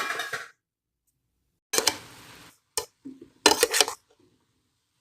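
A metal cooking pot and its lid clattering: a knock with a short ringing tail about two seconds in, a single click, then a quick rattle of knocks a little later.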